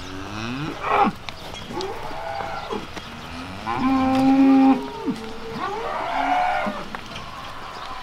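Dairy cows mooing several times, one call after another; the longest and loudest moo comes about four seconds in.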